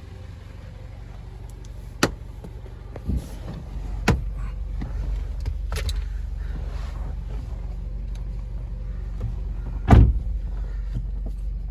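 A car engine idling with a steady low hum, with a few sharp clicks and knocks from inside the car; the loudest knock comes near the end.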